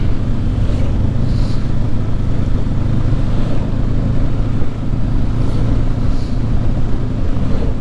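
2019 Honda CB500X's parallel-twin engine running at a steady cruising pace as the motorcycle is ridden, a constant low drone with wind hiss over it.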